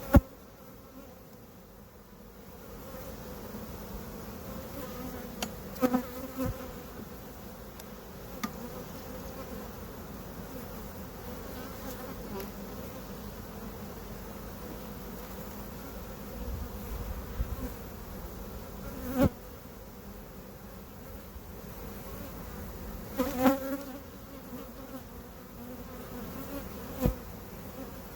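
A swarm of honey bees buzzing steadily as a dense hum, with a few sharp knocks and clicks scattered through, the loudest right at the start.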